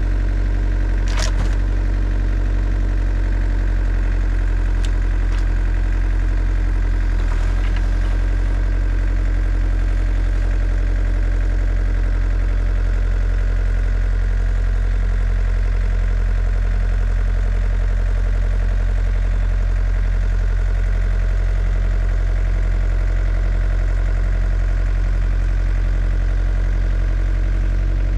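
Cat 307SSR mini excavator's diesel engine running steadily at a constant speed, with a couple of brief clicks in the first few seconds.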